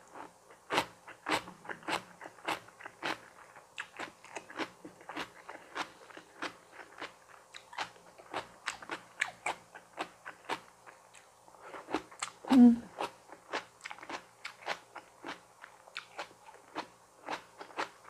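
Close-up chewing of crisp raw vegetables and tofu-skin rolls wrapped with perilla leaves: a steady run of wet crunches, about two or three a second. About two-thirds of the way through there is one louder, short sound with a brief low tone.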